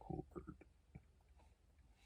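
A few faint clicks and taps in the first second, then near silence: small handling noises from the charger's box and cord.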